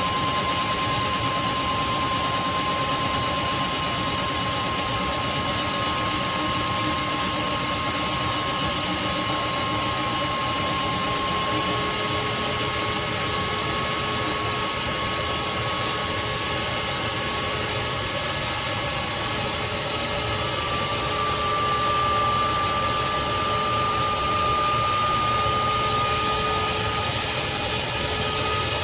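Craftsman CMXEVBE17595 16-gallon wet/dry shop vacuum running steadily: a motor whine over rushing air, the whine rising slightly in pitch about two-thirds of the way through.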